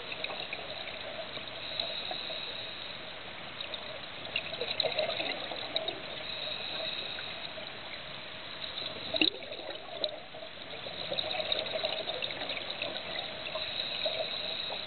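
Underwater ambience recorded through a camera's waterproof housing: a steady watery hiss with scattered faint crackling ticks, and one sharp knock about nine seconds in.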